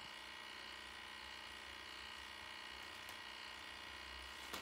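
Faint steady hum of an Infratec ImageIR 3300 MCT thermal camera's cryo cooler running at its 70 K set point, with a few steady tones over it. A small click near the end.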